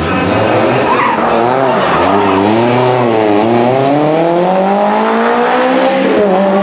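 Lancia Rally 037's supercharged four-cylinder engine working hard: the revs rise and fall with the throttle, then climb steadily for a few seconds, with a brief drop near the end as it changes up a gear.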